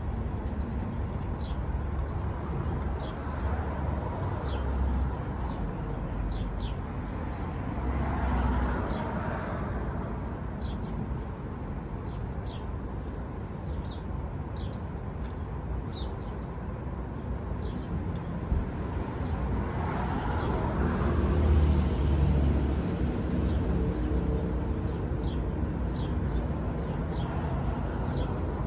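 Outdoor background: a steady low rumble with two vehicles passing, each swelling and fading, and short high bird chirps repeating throughout.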